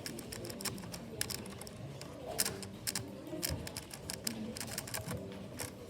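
Keys of a membrane keyboard clicking as they are pressed, a string of irregular clicks.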